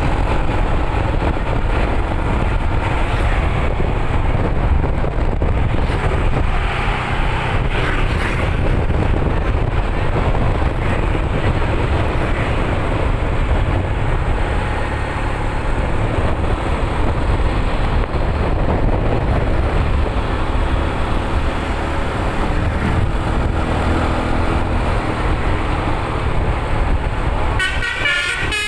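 Tour bus on the road, a steady low rumble of engine and road noise. Near the end its telolet horn starts, a quick run of high changing tones.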